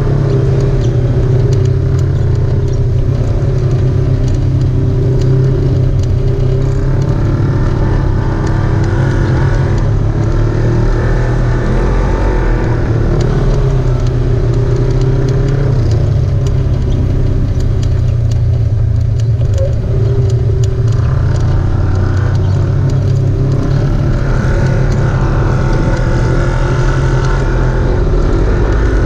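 Off-road vehicle's engine running continuously at a loud, steady level, its revs rising and falling slightly as it drives.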